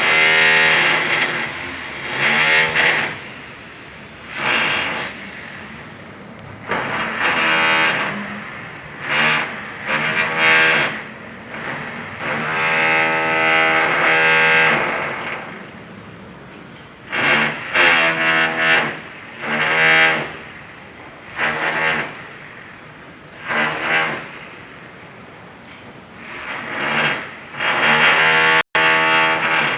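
Demolition hammer breaking concrete, run in repeated bursts of one to three seconds with short pauses between.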